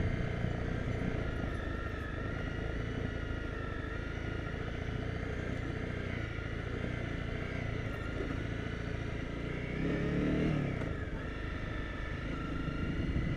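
Honda CRF250 Rally's single-cylinder engine running steadily under way on a dirt track, with a brief rise in revs about ten seconds in.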